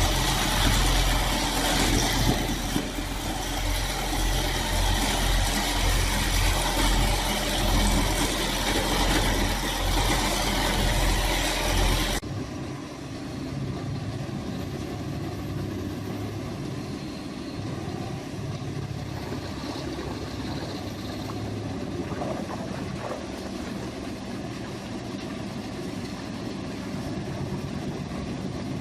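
Heavy-equipment diesel engines running. About twelve seconds in the sound cuts abruptly from a loud, noisy run to a quieter, steadier engine sound.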